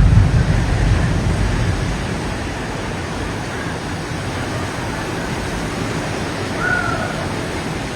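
Strong wind rushing, buffeting the microphone with a heavy low rumble at first that eases after about two seconds into a steady rushing noise.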